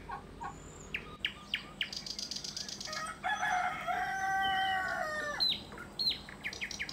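A rooster crows once, a single long call of about two and a half seconds starting about three seconds in and dropping in pitch at the end. Small birds chirp in short, quick calls before and after it.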